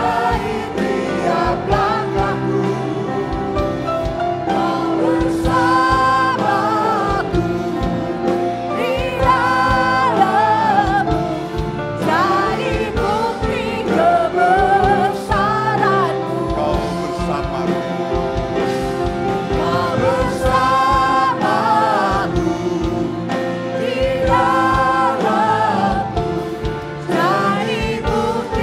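Live gospel worship song: a praise team of several singers with a keyboard and band, the melody rising and falling in sung phrases over a steady beat.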